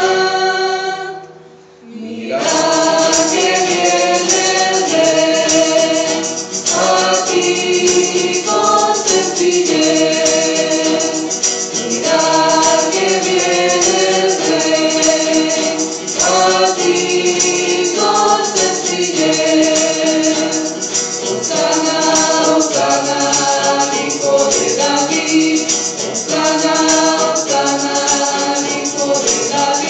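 Mixed choir singing a Spanish-language hymn with two acoustic guitars strumming a steady rhythm. A held chord ends just after the start, there is a short pause, and the song starts up again about two seconds in.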